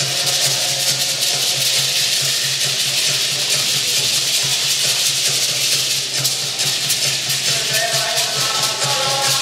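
Deer dance accompaniment: gourd rattles and leg rattles shaken in a fast, steady rattling rhythm. Near the end, a pitched melody joins in.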